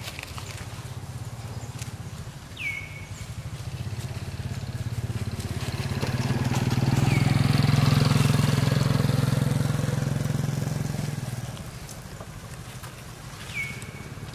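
A motor vehicle's engine running, growing louder to a peak about halfway through and then fading away as it passes. A short high chirp that falls in pitch sounds three times over it.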